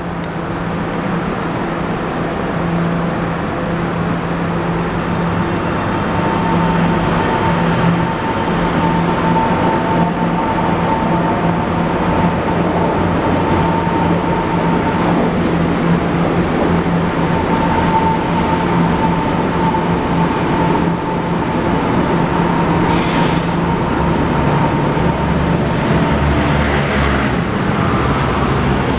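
Taiwan Railway electric multiple-unit train running through the station: a steady rumble with a constant whine. A few short, sharp, higher noises come in the second half.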